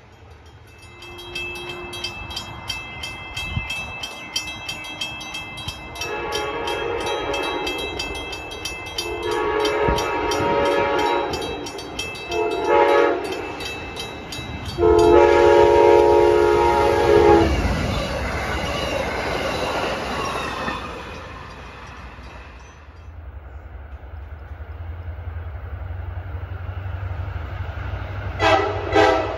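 Grade crossing bell ringing steadily while an approaching train's air horn sounds the crossing signal: two long blasts, one short and one long. After the horn stops comes the rumble of the train passing over the crossing.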